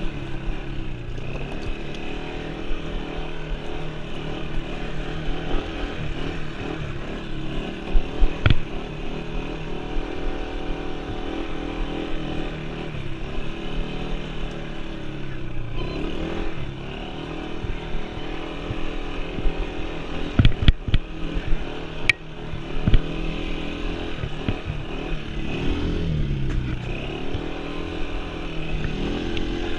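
Yamaha Breeze 125 quad's single-cylinder four-stroke engine running under way, its pitch falling and climbing again several times as the throttle is eased off and opened. A few sharp knocks stand out, one about a third of the way in and a cluster about two-thirds in.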